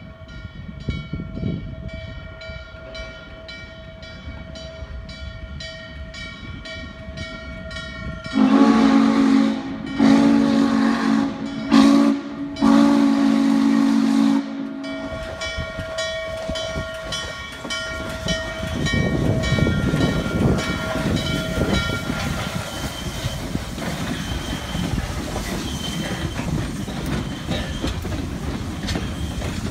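Norfolk & Western Class J 611 steam locomotive approaching with its bell ringing steadily. About eight seconds in, it sounds its chime whistle loudly in four blasts, long, long, short, long: the grade-crossing signal. It then rolls past close by, and the noise of its running gear and exhaust builds over the fading bell.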